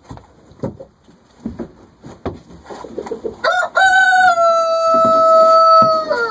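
Rooster crowing once, starting about halfway through: a short rising opening, then a long held final note that sags a little as it ends. Before it, short clucks and scuffling knocks from the chickens.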